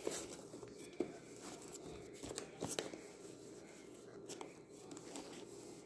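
Faint handling sounds of a cardboard box sleeve: fingers rubbing and picking at its flap to open it, with a few light clicks and taps.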